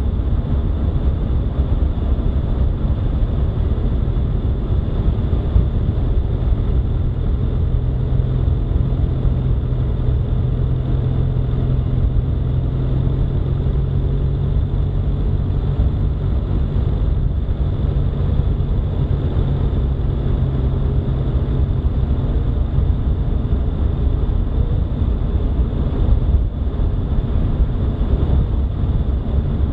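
Vehicle driving at steady road speed on a paved highway: a continuous low rumble of road and wind noise, with a low hum that comes up in the middle and fades later on.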